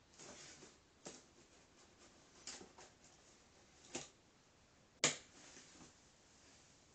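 Cardboard shoebox pushed about by a cat on a wooden floor: a short scrape, then a few sharp knocks as the box shifts and tips, the loudest about five seconds in.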